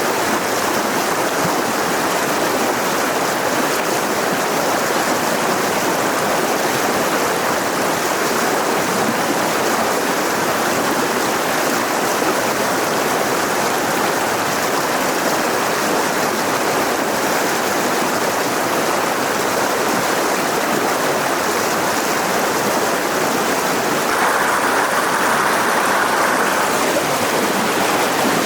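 Mountain river rushing over rocks in a steady, even flow, growing slightly louder and brighter near the end.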